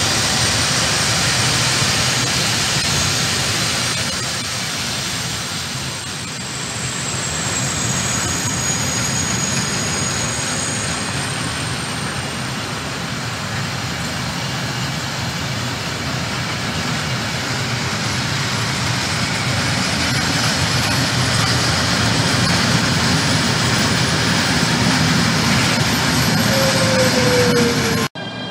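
Long freight train of open and covered goods wagons rolling past close by: a steady, loud rolling noise of steel wheels on rails that cuts off abruptly near the end.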